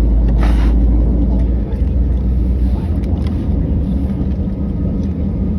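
Cabin noise inside an Airbus A319 on the ground: a steady low rumble from the engines and the rolling airframe, with a brief hiss about half a second in and a few faint ticks.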